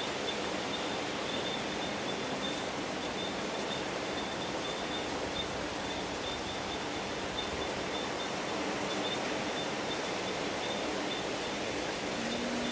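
Heavy rain and strong storm wind making a steady, even hiss.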